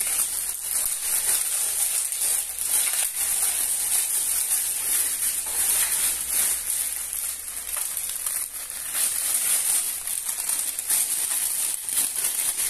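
Plastic packaging film crinkling and crackling irregularly as it is pulled off a stainless-steel spice rack.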